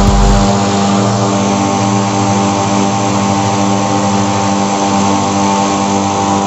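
Electric motor of a homemade lawn mower running steadily at full speed with its blade spinning free, a constant hum and whine; the deepest rumble drops away about half a second in.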